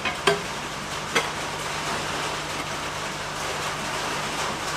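Steady hiss of rain with a faint low hum underneath, broken by two sharp knocks of cut glass pieces being handled: a loud one about a third of a second in and a second about a second in.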